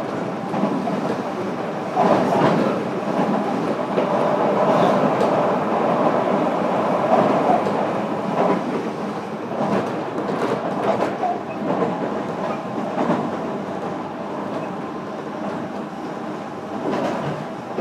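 Interior running noise of a JR Kyushu 305 series electric train, heard inside a motor car: a continuous rumble of the running train with scattered sharp wheel clicks over rail joints. It grows louder about two seconds in and slowly eases off in the second half.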